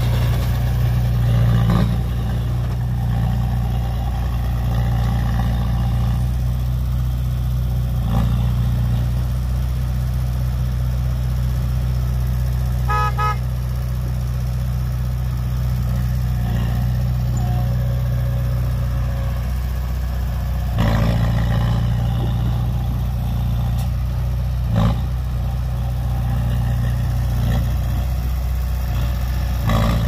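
Heavy diesel engine of earthmoving machinery running steadily at a low drone, with a few short clanks. About halfway through comes a brief pulsing horn toot.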